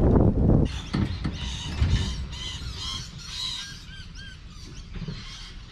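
Wind and road rumble from the moving vehicle, cut off abruptly under a second in, then several birds chirping and calling over a faint low hum.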